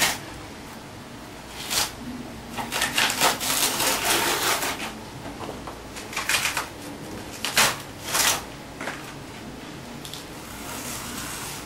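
Layers of a banana trunk being peeled apart by hand: a run of short tearing rasps as the fibrous sheaths come away, with a longer stretch of tearing a few seconds in.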